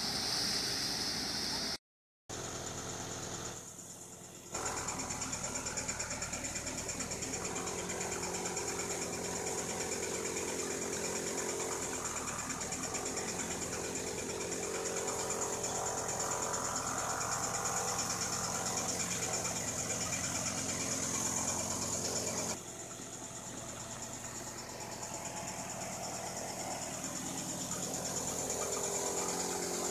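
Farm machinery engines running steadily, in several edited clips: the sound drops out briefly about two seconds in and changes abruptly near four and twenty-two seconds.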